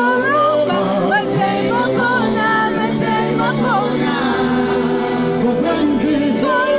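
Gospel song performed live: several singers on microphones over keyboard accompaniment, amplified through a PA system.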